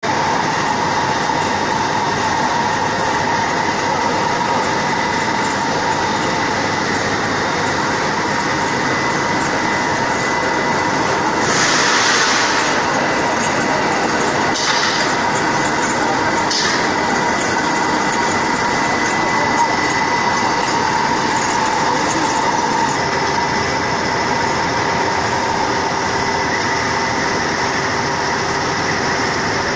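Steel sanding machine running steadily: a continuous mechanical rush with a steady whine. A louder hissing surge comes a little before halfway, followed by two short hissy spurts.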